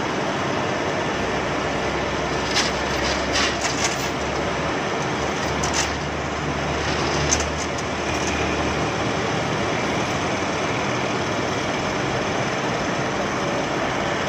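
A heavy vehicle's diesel engine running steadily, with a few sharp knocks in the first half.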